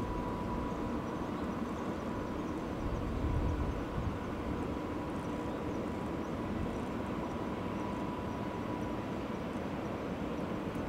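Steady low outdoor background rumble with a faint constant high tone, swelling briefly about three seconds in.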